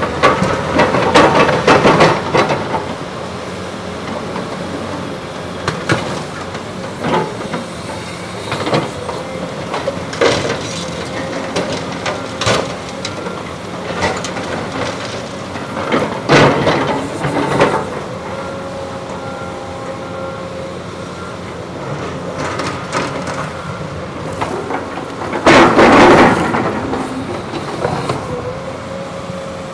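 Caterpillar excavators' diesel engines running steadily while the buckets dig, scrape and knock into broken concrete and soil, with irregular metallic clanks and crashes of rubble. The loudest crash comes near the end.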